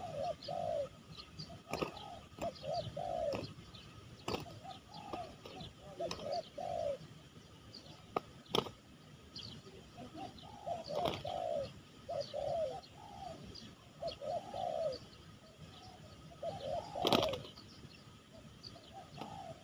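Spotted doves (tekukur) cooing over and over in short, low, arching coo phrases, answering one another. A few short sharp sounds cut in, the loudest near the end.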